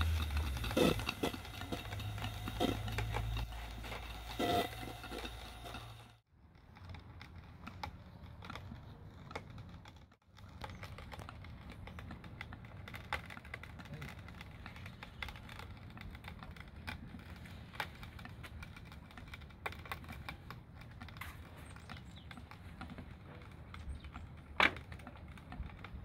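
Stuart James Coombes model steam engine running, with a quick, light clicking and ticking from its moving parts. A low hum under the clicks drops away about six seconds in, and one sharper click comes near the end.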